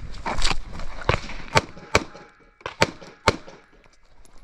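Airsoft pistol firing a string of about six or seven sharp shots at uneven spacing, each a short crack.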